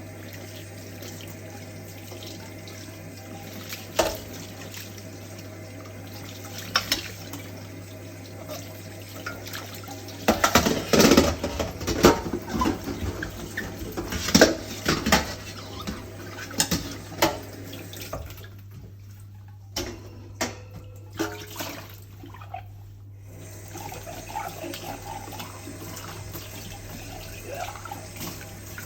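Kitchen tap running into a sink while dishes are washed by hand, with repeated clinks and clatters of dishes, busiest around the middle. The running water stops for a few seconds past the middle, then comes back. A steady low hum sits underneath.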